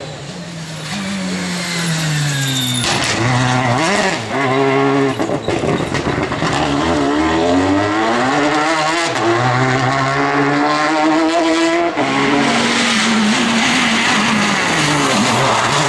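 World Rally Cars' turbocharged four-cylinder engines revving hard through the gears at stage speed, pitch climbing and dropping again and again with shifts and braking. The sound breaks off abruptly about three seconds and twelve seconds in, as one car's pass gives way to another.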